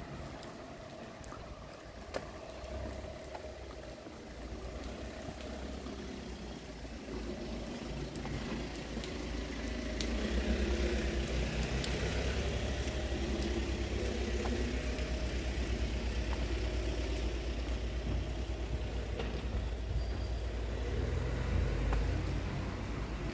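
Car driving on a wet street, tyres hissing on the wet asphalt over a low engine rumble, growing louder over the first ten seconds or so and then holding steady.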